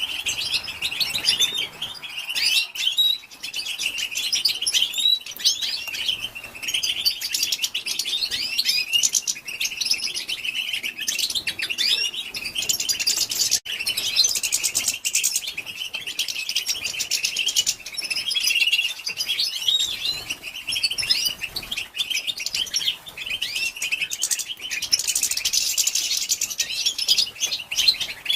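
European goldfinch twittering: a continuous run of rapid, high chirps and short trilled notes without a break, the female's chattering call that keepers play to stir male goldfinches into song.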